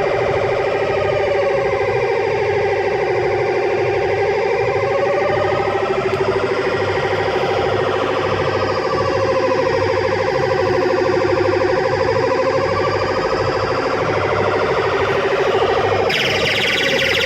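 Electronic siren-like sound effect from the button sound unit of a coin-operated kiddie ride, sweeping slowly up and down in pitch, twice over, over a steady electronic tone. About a second before the end the sound turns brighter and harsher.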